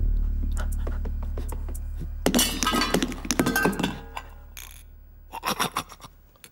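Cartoon rummaging effects: a dense clatter of bottles, a pan and tools clinking and knocking as they are tossed out of a kitchen sink cupboard, lasting about two seconds from about two seconds in. A low held tone fades away underneath.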